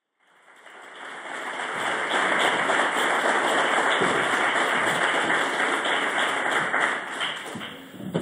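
Audience applauding: the clapping fades in, holds steady, then dies down near the end.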